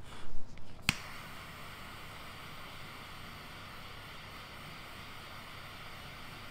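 A butane jet-torch lighter clicks on just under a second in, then its flame hisses steadily as it is held to the cigar's foot to relight it. Before the click come a few short breaths at the cigar.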